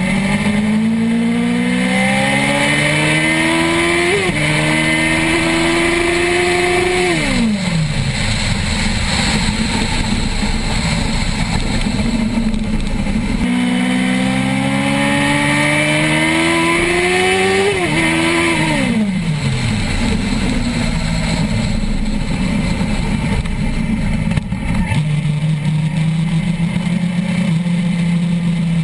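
Suzuki GSX-R1000's inline-four engine heard onboard at speed under heavy wind rush: its pitch climbs hard with a quick upshift about four seconds in, then falls away. The same pull and upshift come again from about thirteen seconds, and near the end the engine holds a steady note.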